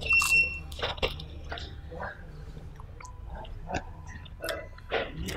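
A person chewing and eating close to the microphone: scattered small wet clicks and smacks from the mouth. A brief high tone sounds just at the start.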